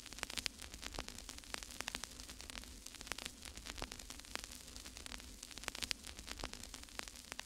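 Faint crackling static: a steady hiss with irregular clicks and pops several times a second, over a low hum.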